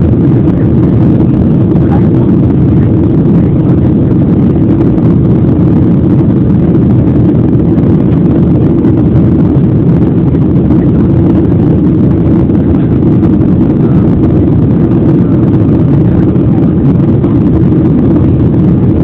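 Steady, loud rumble of an airliner in flight heard from inside the cabin: jet engine noise and airflow, unchanging throughout.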